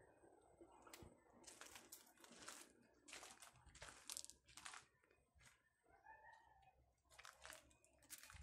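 Faint footsteps crunching on loose gravel, a run of several steps, then a pause of about two seconds, then a few more steps near the end.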